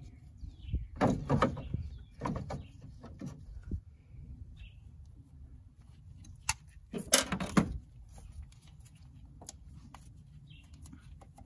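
Tongue-and-groove pliers working the hose clamp and fitting on a clutch master cylinder: scattered metal clicks, knocks and scrapes, with the loudest clatter about seven seconds in.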